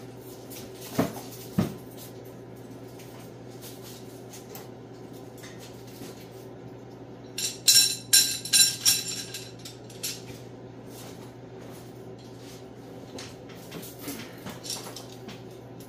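Steel engine pushrods clinking and rattling against each other as a bundle of them is gathered up, a cluster of ringing metal clinks about seven to nine seconds in. Two sharp knocks come near the start, over a steady low hum.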